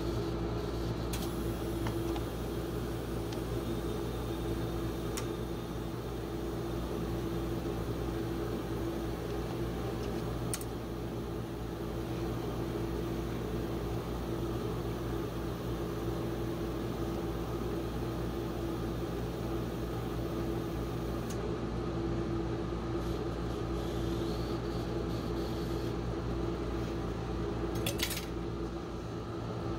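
Steady machine hum of a rolled-ice-cream freezing plate's refrigeration unit, with a few light clicks and taps as ice cream rolls are handled on the steel plate and set into a cup.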